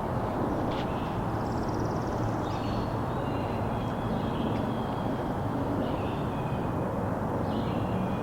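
Steady low rumbling outdoor background noise, with faint songbird chirps over it and a short high trill about two seconds in.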